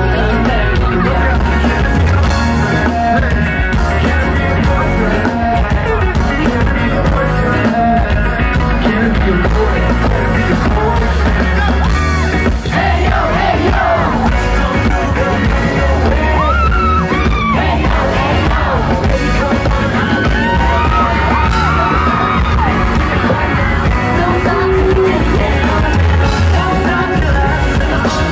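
Live pop-rock band music played loud through a concert PA, with heavy bass, a singer on microphone and a crowd yelling along. The vocal line stands out most in the middle of the stretch.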